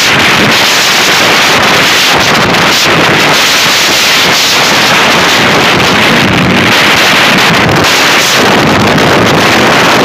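Steady wind rushing over the microphone of a motorcycle ridden fast on a highway, with the bike's running and road noise underneath.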